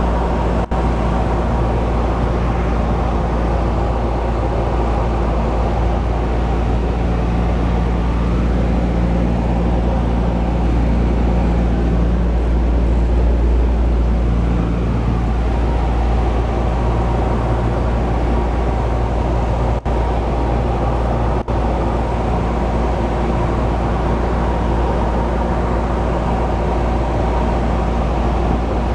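Engine and propeller of a single-engine light aircraft droning steadily, heard inside the cabin. The sound swells slightly midway and has three very brief dips.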